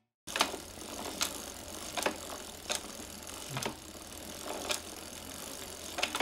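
Sharp mechanical clicks at uneven intervals of roughly a second, over a steady low hum; starts suddenly after a short silence.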